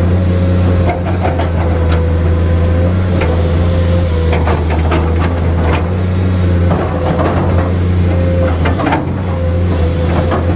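Komatsu PC210 hydraulic excavator working: its diesel engine runs steadily under load with a steady whine over it, while the bucket digs and scrapes through sand, giving scattered clicks and knocks.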